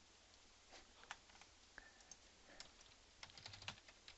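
Faint keystrokes on a computer keyboard: a few scattered single taps, then a quick run of typing near the end.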